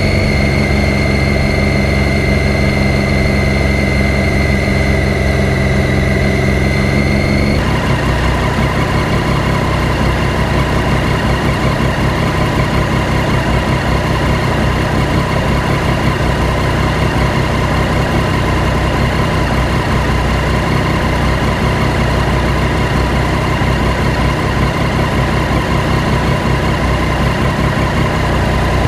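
Triumph Daytona 675's three-cylinder engine running steadily at low revs, its tone changing abruptly about seven seconds in.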